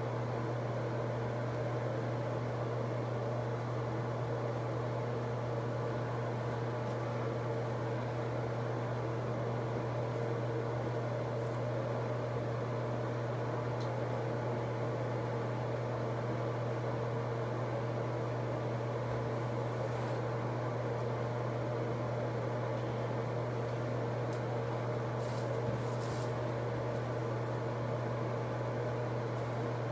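Steady low mechanical hum of a running motor, with a few faint rustles near the end.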